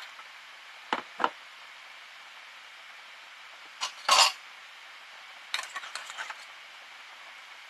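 Metal spoon clinking and scraping against an opened tin of cat food while the food is spooned into steel bowls: two taps about a second in, a louder clatter around four seconds, then a quick run of small scrapes and taps.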